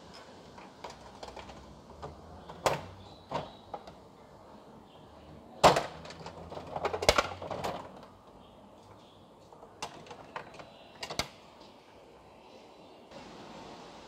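Coin-operated capsule toy machine being worked by hand: a dollar coin pushed into the slot and the knob turned, giving a series of sharp mechanical clicks and clunks with a short rattle, the loudest clunk about six seconds in.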